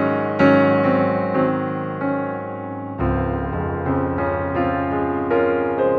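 Background piano music: a gentle run of single notes and chords, with a deeper bass chord coming in about halfway through.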